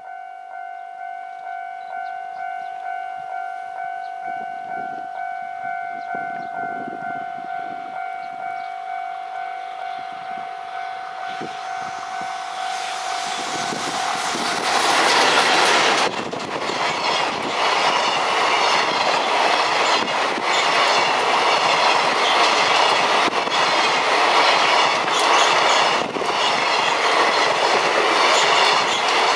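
JR Freight EF210 electric locomotive hauling a container freight train passes close by: its noise builds from about halfway and peaks sharply as the locomotive goes by, then the container wagons' wheels clatter over the rail joints for the rest. Before the train arrives, a ringing tone pulses about one and a half times a second.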